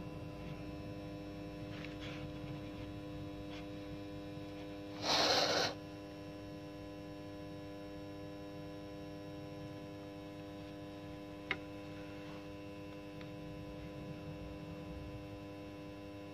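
Steady electrical hum made of several constant tones. About five seconds in it is broken by a short, loud burst of noise lasting under a second, and there is a single click near twelve seconds.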